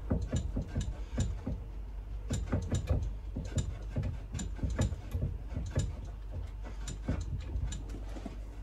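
Long-handled socket ratchet clicking in short runs, a few clicks a second, as it is swung back and forth on a bolt between the engine and gearbox.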